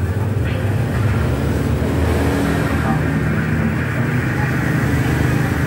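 Electric hair clippers running with a steady low buzz.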